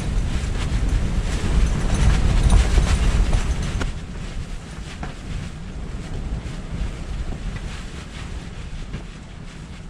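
Strong wind buffeting an ice-fishing shelter: a loud low rumble with scattered light ticks, easing off about four seconds in.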